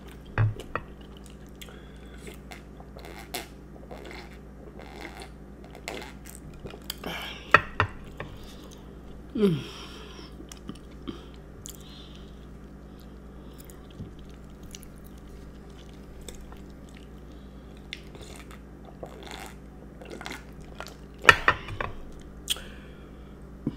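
Close-miked chewing of a chocolate chip cookie and milk: soft wet mouth sounds with scattered small clicks, and a few louder bites and smacks about a third of the way in and again near the end.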